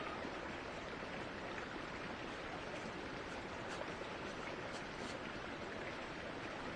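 Steady rushing of a small woodland stream, even and unbroken, with a few faint high ticks.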